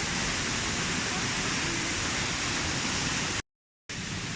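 Waterfall rushing: a steady, even roar of falling water. Near the end it cuts to silence for about half a second, then the rush resumes slightly quieter.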